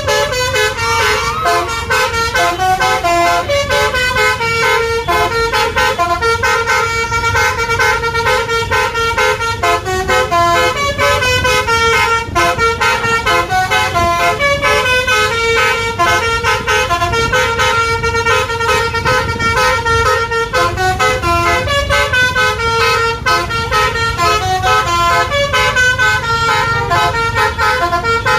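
Bus Basuri multi-tone 'telolet' horn playing a tune: a fast, continuous run of loud horn notes changing pitch every fraction of a second, over a low engine and road rumble.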